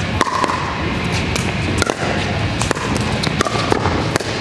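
Sharp, irregular pops of pickleball paddles striking the hard plastic ball during a rally, with the ball bouncing on the court. A steady low rumble of the hall runs underneath.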